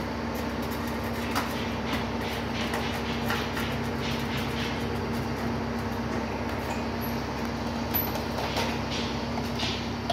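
An engine running steadily with a constant hum. Scattered light clicks and knocks sound over it as the wheel's frame sections are handled.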